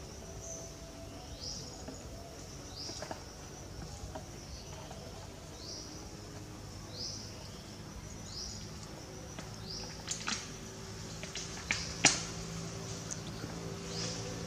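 A bird repeating a short rising chirp about every one and a half seconds over a faint low steady hum, with a few sharp clicks or snaps near the end.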